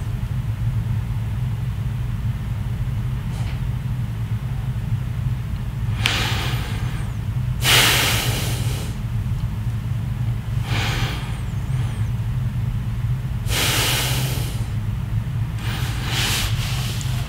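A man breathing heavily close to the microphone: about five long, noisy breaths or sighs, the loudest about eight seconds in, over a steady low hum.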